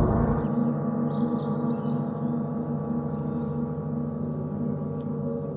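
Several large gongs ringing together, a dense shimmer of many steady overlapping tones. The deepest hum drops away about half a second in, and the rest slowly fades.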